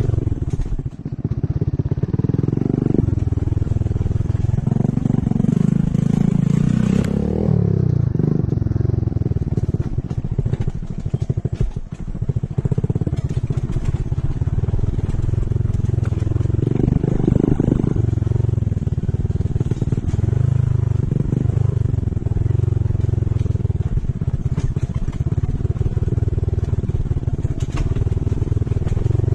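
An engine running steadily for a long stretch, with a brief rise and fall in pitch about seven seconds in.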